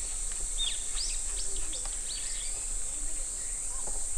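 Outdoor ambience of insects holding a steady high-pitched drone, with a bird's short chirps repeating several times.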